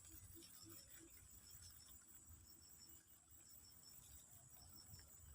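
Faint outdoor ambience of insects: a steady high buzz with short chirps repeating at an even pace over a low rumble.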